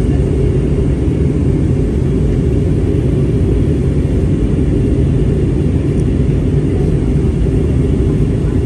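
Jet airliner cabin noise in flight: the engines and the rushing air outside blend into a deep, steady rumble.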